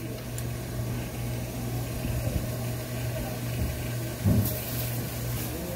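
A machine's steady low hum over background noise at a street food stall, with a short knock about four seconds in followed by a brief hiss.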